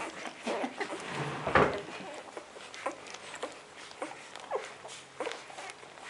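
Four-day-old puppies nursing: irregular wet sucking clicks mixed with short squeaks, the loudest about a second and a half in.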